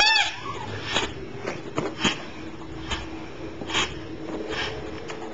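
A dog's squeaky toy gives one short squeak at the start, its pitch rising and falling. Faint scattered clicks and rustles follow over a steady low hum.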